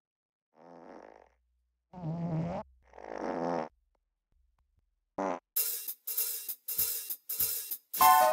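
Three short comic fart sound effects, each a wavering buzzy tone. Then a quick pitched blip and a run of cymbal or hi-hat hits about every 0.6 s, with keyboard music starting near the end.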